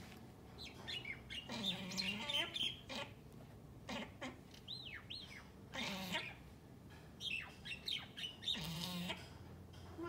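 Common myna calling in several bouts: harsh squawks and gurgles, with a few sharp falling whistles in the middle.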